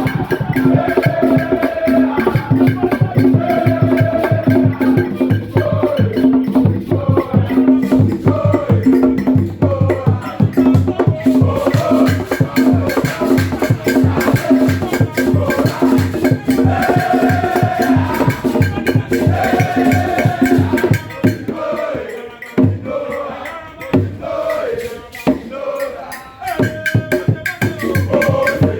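Loud recorded music with a busy percussion beat, shaker and wood-block-like strokes, over a repeating bass line, played through a hall's sound system during a sound check. The beat drops back for a few seconds after about 21 seconds, then comes in full again near the end.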